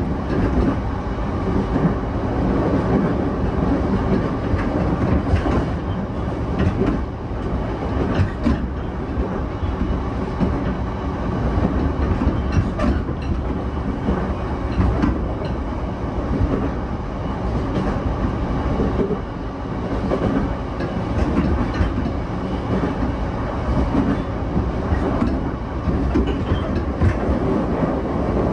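Running noise inside a JR East E233-7000 series commuter car at speed: a steady rumble of wheels on rail, with a few sharp clacks from the wheels along the way.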